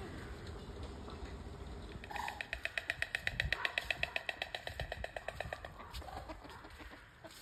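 White stork clattering its bill: a rapid, even run of clacks, about ten a second, starting about two seconds in and lasting about three and a half seconds.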